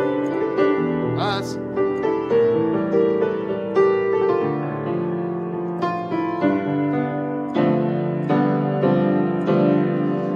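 Piano playing a gospel-style chord progression in C major as full two-handed block chords, a new chord struck every half-second to second, each one ringing into the next.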